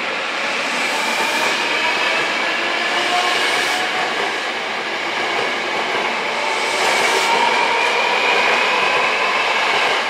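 Hankyu 1000 series electric train running, its IGBT-VVVF inverter and permanent-magnet synchronous motors giving a whine of several tones that slowly climbs in pitch, over wheel and rail noise.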